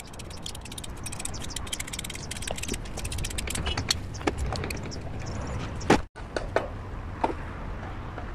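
Irregular clicks, taps and knocks of plastic pipe fittings and a valve being handled and fitted by hand, over a steady low rumble. The loudest knock comes about six seconds in.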